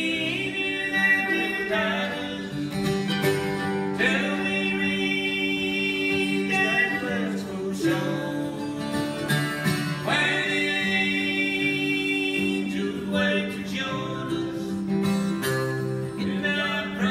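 Live acoustic bluegrass duet: an acoustic guitar strumming rhythm under a mandolin, playing a gospel tune.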